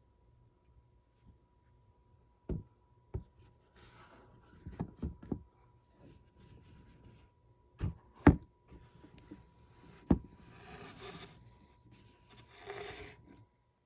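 Objects being handled and set down: a series of knocks and thumps, the loudest a little after eight seconds in, with softer rubbing and rustling in between.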